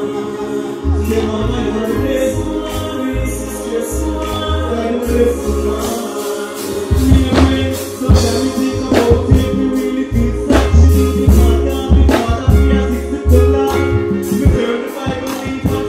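Live stage-show music through a PA: a backing track with a heavy bass line and a steady beat, and a voice singing into a microphone over it. The drum hits come in harder about seven seconds in.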